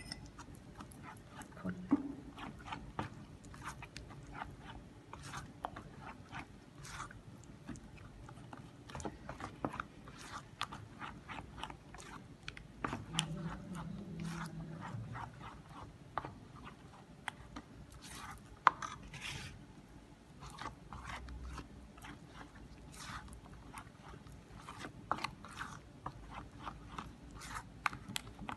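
Thick, sticky flour batter being mixed and squeezed through the fingers by hand in a metal bowl: a continuous run of irregular wet squelches and small clicks.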